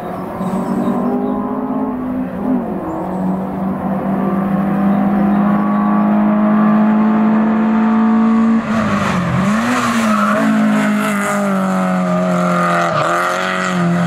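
Small hatchback historic competition car racing uphill, its engine held at high revs and slowly rising in pitch as it approaches. The pitch briefly drops and climbs again about two-thirds of the way through and once more near the end, as with gear changes.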